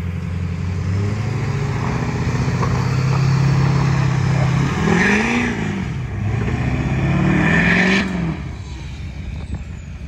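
Pickup truck engine accelerating, its pitch climbing steadily for about five seconds. It then revs up and down quickly, rises again and eases off about eight seconds in.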